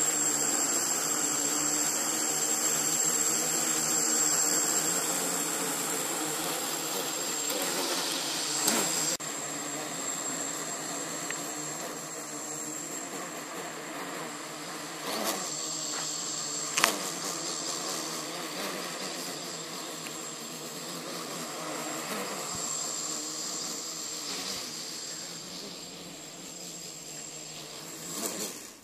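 Home-built quadcopter's four electric motors and propellers buzzing steadily as it takes off and hovers, with a steady high whine above the buzz. The sound grows gradually quieter over the second half, and a few brief sharp knocks break in partway through.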